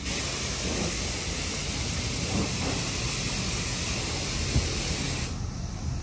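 Steady hissing drone of a Brood X periodical cicada chorus, cutting off suddenly near the end.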